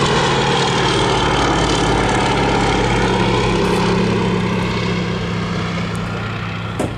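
Fairey Swordfish biplane's Bristol Pegasus nine-cylinder radial engine and propeller droning steadily in flight, fading a little over the last couple of seconds. A short click comes near the end.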